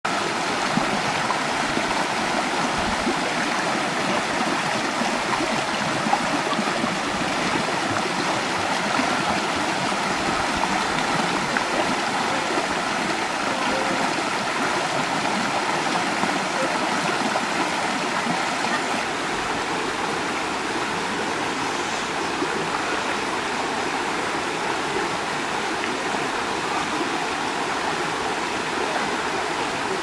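Shallow rocky stream running fast over and between stones, a steady, even rush of water.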